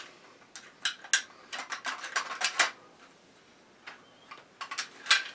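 Mossberg 500 pump shotgun's steel receiver and small parts clicking and clinking as it is stripped by hand. A scattered run of sharp clicks in the first three seconds, then a few more near the end.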